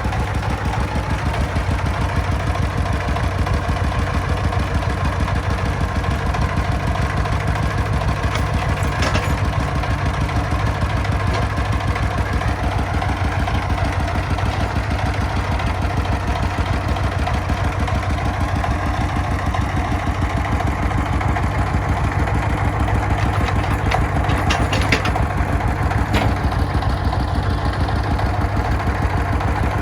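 Diesel engine idling steadily with an even, rapid chugging beat, broken by a few short metallic clinks.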